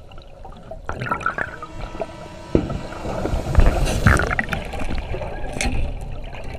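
Water churning and bubbling around an underwater camera as a great white shark thrashes against a diving cage. There are heavy surges about two and a half seconds in and again around four seconds in.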